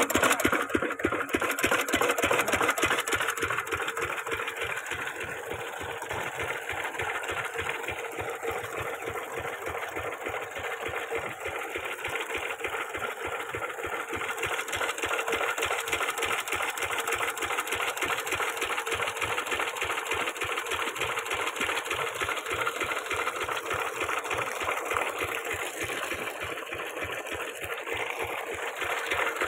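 Lister-type 8 hp single-cylinder diesel engine running steadily, an even train of firing beats that dips a little in loudness a few seconds in and picks up again later.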